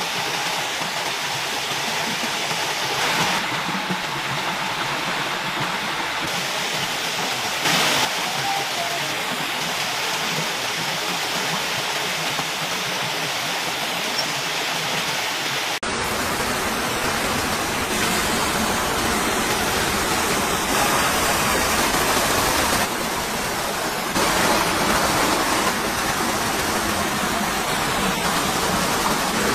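Small waterfall and stream water rushing steadily. About halfway through, the rush turns fuller and deeper.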